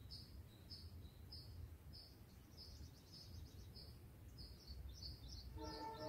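Faint, thin high-pitched chirps from white-eye nestlings begging, repeated about every half second and crowding together near the end as they are fed. A steady chord of music comes in just before the end.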